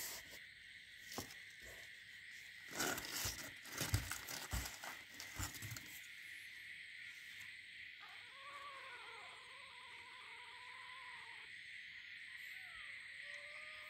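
Knocks and scrapes of a gloved hand handling kittens in a cardboard box, then a newborn kitten mewing: one long drawn-out cry starting about eight seconds in and a shorter rising-and-falling cry near the end, over a steady high hiss.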